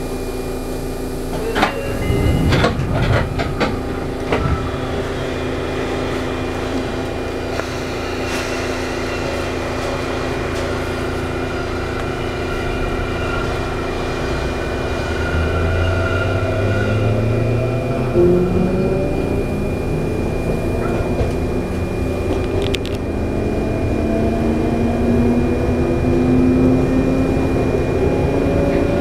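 Sotetsu 9000 series electric train's Hitachi IGBT-VVVF inverter and traction motors, heard from inside the car. A few knocks come a couple of seconds in, then from about halfway a whine climbs steadily in pitch as the train accelerates.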